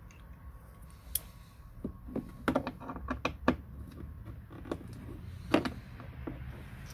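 Sharp plastic clicks and knocks from a hand working at the clips of the empty window-switch housing in a VW Passat B6 door panel. The clicks come in a quick run about two to three and a half seconds in, with a single loud one near the end.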